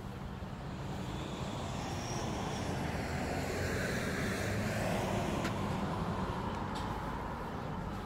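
A motor vehicle passes by, its sound rising to a peak about five seconds in and then fading, over a steady low traffic rumble.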